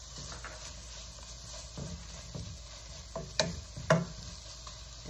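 Wooden spatula stirring and scraping ivy gourd fry around a nonstick pan. There are a few scrapes, and two sharp knocks against the pan about three and a half and four seconds in are the loudest sounds.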